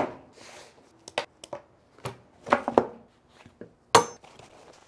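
A canvas knife roll dropped onto a wooden butcher-block table with a thud, then handled and unrolled with a few soft knocks and rustles, and a sharp metal clink of knives about four seconds in.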